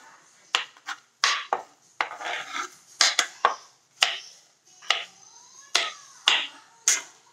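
Kitchen knife chopping green beans on a wooden cutting board: about a dozen sharp, irregular knocks as the blade cuts through and strikes the board.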